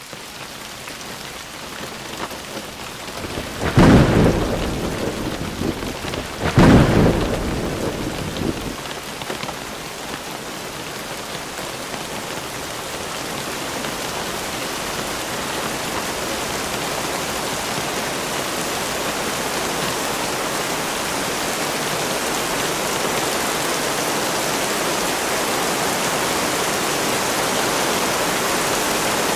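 Thunderstorm: steady rain with two claps of thunder, about four and seven seconds in, each rumbling away over a second or two. After the thunder the rain goes on as an even hiss that slowly grows louder.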